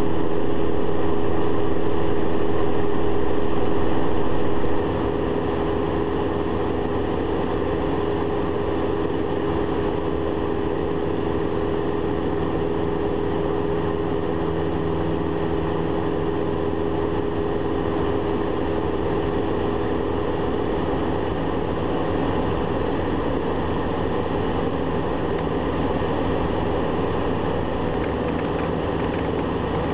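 A Diamond DA40's engine and propeller drone steadily in cruise, heard inside the cockpit, with a few steady hum tones over a rushing noise. For the first five seconds a brighter hiss lies over the drone, then cuts off suddenly.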